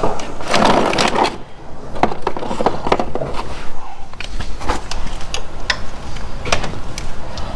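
Irregular knocks, clicks and a scrape of hand tools and metal parts being handled while working on a machine.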